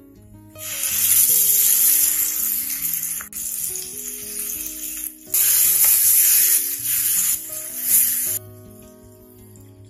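Wet ground masala paste sizzling loudly as it hits hot oil with whole spices in a frying pan, and sizzling on as it is stirred with a spatula. The sizzle dips briefly twice and cuts off suddenly near the end.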